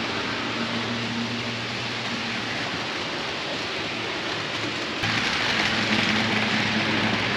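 Steady hissing noise with a low hum underneath; it jumps suddenly louder and brighter about five seconds in.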